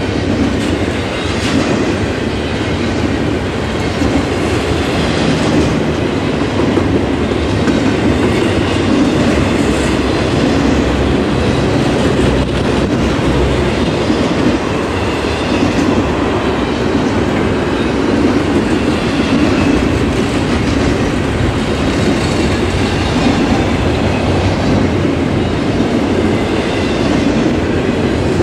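Double-stack container well cars of a freight train rolling steadily past, a loud continuous rumble of steel wheels on rail.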